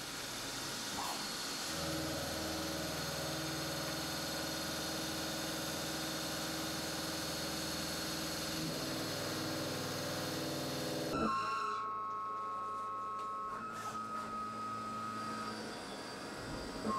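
CNC machine's milling spindle running and its cutter working a steel workpiece: a steady mechanical hum with hiss. About eleven seconds in there is a short knock, and the sound changes to a steady high whine of two tones with the spindle at 10,000 rpm.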